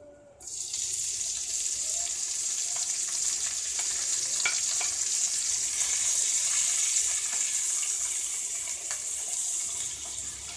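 Sliced onions hitting hot oil and frying: the sizzle starts suddenly about half a second in and runs on as a steady hiss, with light taps and scrapes of a wooden spatula stirring them in the pan.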